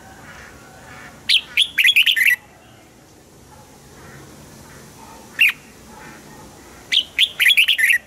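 Red-whiskered bulbul singing: a loud phrase of quick whistled notes about a second in, a single note in the middle, and another quick phrase near the end. Fainter bird chirping carries on between the phrases.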